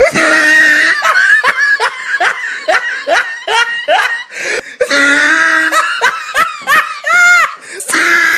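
Loud, hearty laughter in quick repeated bursts, lasting for several seconds.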